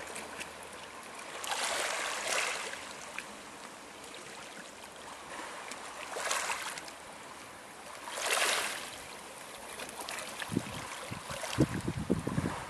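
Small waves washing up over a pebble beach, three soft hissing surges a few seconds apart over a steady wash of water. Near the end, low irregular thumps come in.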